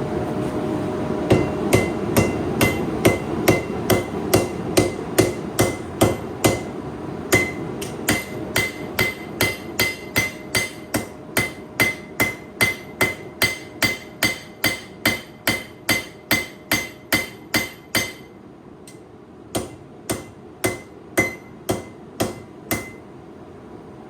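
Hand hammer striking hot high-carbon steel on an anvil to forge a knife blade: a steady run of blows, about two or three a second, each with a short metallic ring. There is a brief pause near the start, and a few slower, spaced blows toward the end.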